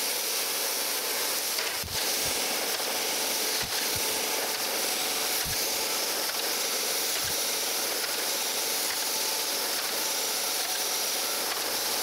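Surface grinder wheel making very light finishing passes across a steel straight edge under a coolant spray mist: a steady hiss of wheel and mist. A few soft low thumps come in the first part.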